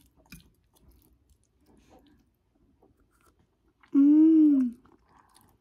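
Faint mouth sounds of people eating Chapagetti instant noodles: soft chewing and small slurps. About four seconds in comes a loud hummed 'mmm' of enjoyment, its pitch rising then falling.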